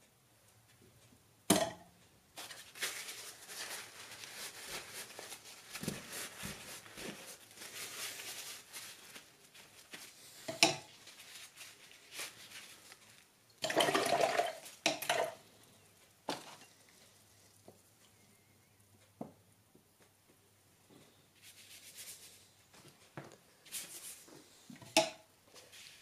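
Watercolour painting at a table: a brush clinking sharply against glass water jars and paint pots a few times, with stretches of brush scrubbing and swishing on paper and in water, louder for a moment around the middle.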